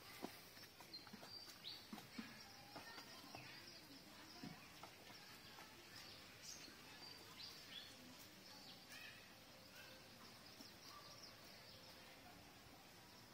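Faint outdoor ambience: small birds chirping here and there, with a few soft scattered clicks.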